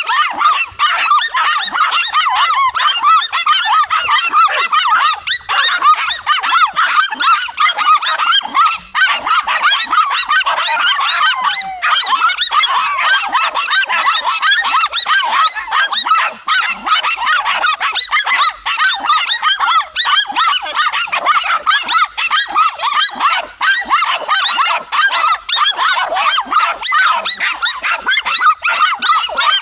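Several dogs barking and yapping without pause, their barks overlapping into one continuous din.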